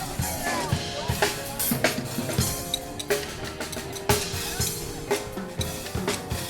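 Music played with a drum kit: bass drum and snare hits over steadily held instrument notes.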